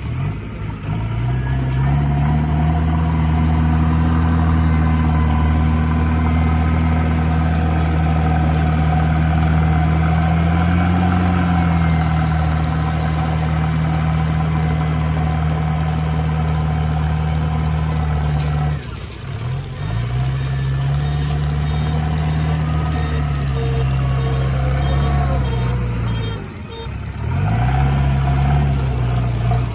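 JCB 3DX backhoe loader's diesel engine running under load as it scoops and pushes soil with its front bucket. The engine note climbs near the start, then drops and picks up again twice, about two-thirds of the way through and near the end.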